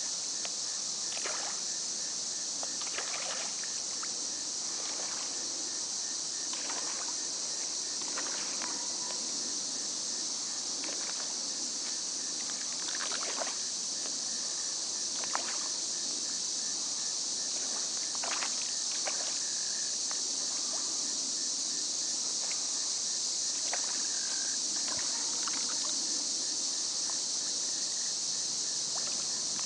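Steady high-pitched evening insect chorus, with scattered short splashes every few seconds as pond fish (hybrid striped bass, channel catfish and largemouth bass) strike food at the surface.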